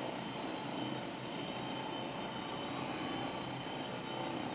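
Steady hum and hiss of a room air conditioner, with a faint high whine running through it.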